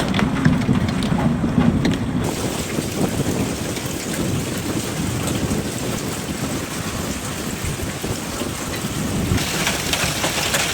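Hail and heavy rain pounding down in a thunderstorm: a dense patter with many sharp ticks. A low rumble runs under the first two seconds. The sound changes abruptly about two seconds in and again near the end, like cuts between storm recordings.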